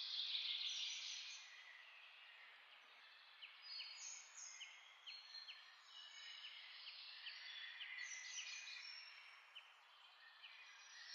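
Faint sizzling of oil and meat skewers frying in a pan, a soft hiss with light crackles, loudest at the start and easing as the skewers are lifted out.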